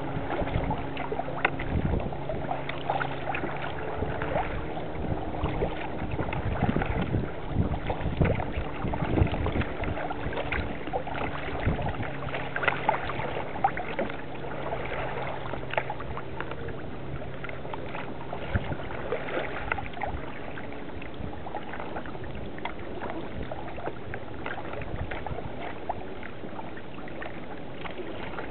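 Kayak paddle strokes: blades dipping into the water and dripping, with water splashing and lapping. A faint low steady hum runs under it and fades out a little past the middle.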